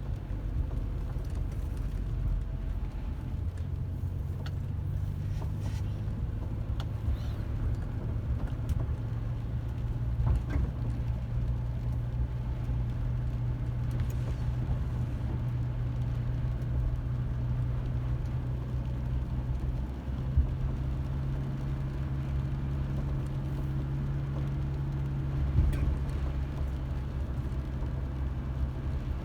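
Car driving, heard from inside: a steady low engine and road drone whose pitch shifts in steps now and then, with a few light knocks.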